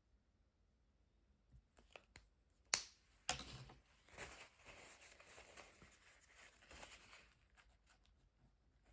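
Art supplies being handled at a desk: a few small clicks and two sharp snaps, then about four seconds of scratchy rustling that fades out.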